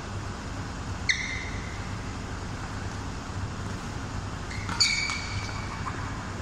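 Badminton racket strings striking a shuttlecock twice, about a second in and again near five seconds in, each hit a sharp crack with a short ringing ping. A steady low hum runs underneath.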